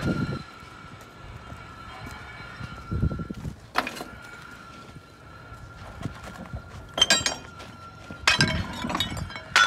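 Pieces of scrap iron clanking against each other and against a metal tin as it is carried on a steel bar, with sharp ringing clanks about four, seven and nine seconds in. A steady high-pitched whine runs underneath.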